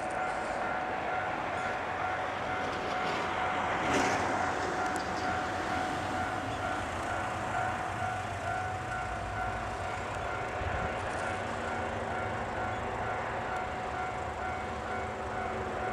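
Limited express Hamakaze, a KiHa 189 diesel multiple unit, running through a level crossing: steady engine and wheel-on-rail noise with a louder rush about four seconds in, while the crossing's warning bell keeps ringing.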